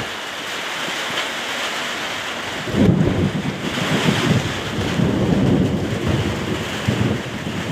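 Heavy rain falling steadily in a storm, with a low rolling rumble of thunder that starts about a third of the way in and goes on, swelling and fading.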